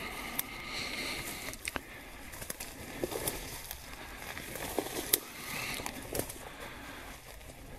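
Footsteps through dry grass and brush, the stems and leaves rustling and crackling underfoot with scattered sharper snaps.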